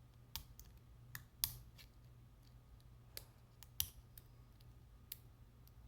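Scattered small, sharp metallic clicks of lock picks and a lock being handled, about ten at irregular intervals.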